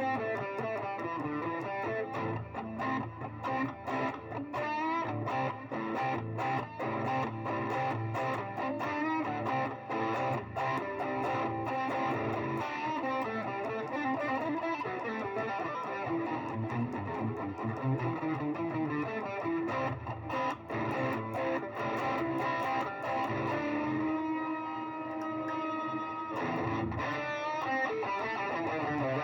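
Electric guitar played through an overdrive and distortion effect, picking a run of fast notes and riffs. Near the end a chord is held and rings steadily for a few seconds before the picking resumes.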